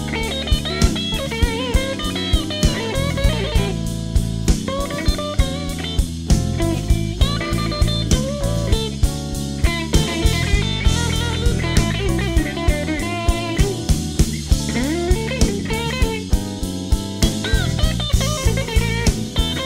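Electric blues band playing an instrumental stretch with no singing: an electric guitar lead with bent notes over a drum kit keeping a steady beat.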